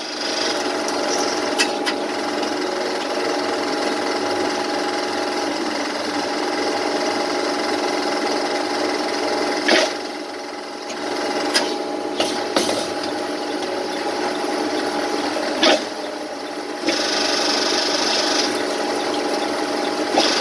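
A CNC lathe runs with a steady whine while a parting tool faces and parts off a brass (L63) bushing. A few sharp clicks come around the middle, and the sound gets brighter and a little louder over the last few seconds.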